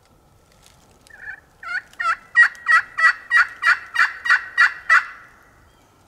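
Hand-held friction turkey call worked with a striker, running a series of hen yelps: about eleven sharp yelps, about three a second, building in loudness, then stopping about five seconds in.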